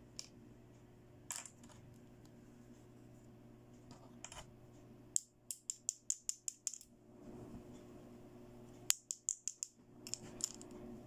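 Small plastic doll accessories handled on a table: a few separate light clicks, then two quick runs of sharp plastic clicks, about five or six a second, as toy flower hair clips are worked in the hands.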